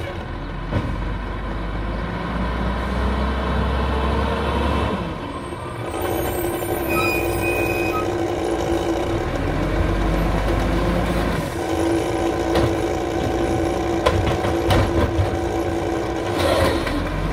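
Diesel engine of an old Peterbilt 310 garbage truck with an Amrep automated side-loader running as it pulls up, with a short high squeal about seven seconds in. Clunks come near the end as the automated arm lifts a cart.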